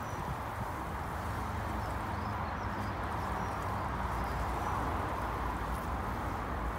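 Water pouring steadily from a plastic watering can's spout onto wet compost in a large pot, a continuous splashing stream.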